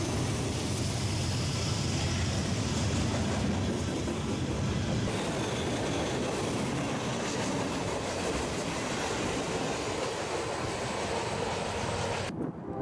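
Freight train's tank cars and boxcars rolling past close by: a steady rumble and clatter of steel wheels on rail.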